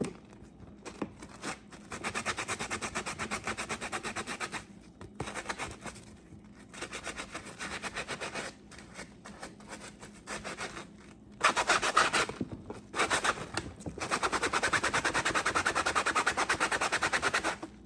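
Fast back-and-forth scrubbing of a dishwasher's mesh filter, working grime off it. It comes in runs of a few seconds with short pauses, and there is a louder, rougher spell a little past the middle.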